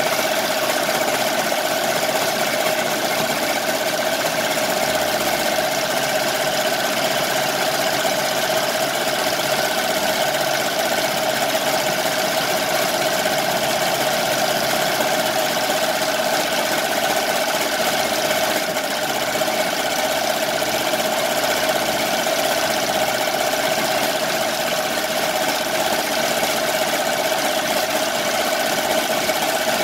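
Multi-needle embroidery machine running steadily as it stitches, a continuous even mechanical hum without pauses.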